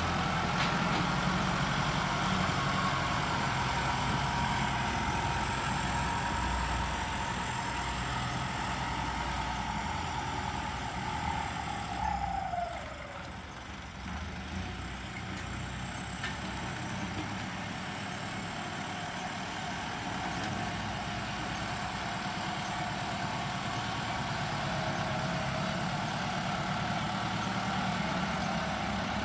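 Turbo-diesel engine of a Kubota L50 tractor running steadily under load as it pushes and levels soil with its front blade. It grows quieter about twelve seconds in as the tractor moves away, then builds again as it comes back.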